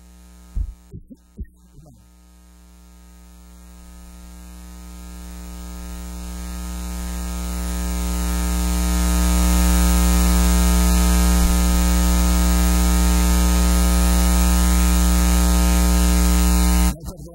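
Electrical mains buzz through the church sound system. After a few small knocks about a second in, it swells steadily over several seconds to a loud, even hum, then cuts off suddenly near the end.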